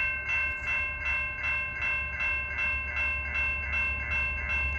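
Railroad crossing bell ringing in a steady rhythm of about three strokes a second while the gates are down and the lights flash, over a low steady rumble.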